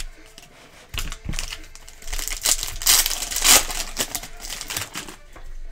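A couple of light knocks, then a foil trading-card pack wrapper crinkling loudly in the hands for about three seconds as it is worked open.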